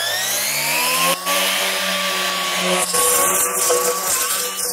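ESBC54 cordless brush cutter, its electric motor mounted at the head above a metal blade, whining up to speed over the first second and then running steadily while cutting tough weeds, with a brief dip about a second in.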